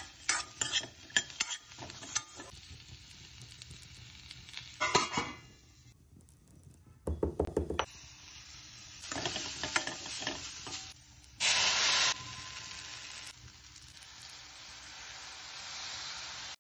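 Pumpkin cubes sautéing in a stainless steel pan: a metal spoon stirring and scraping against the pan with clinks, and the food sizzling, in several separate bouts.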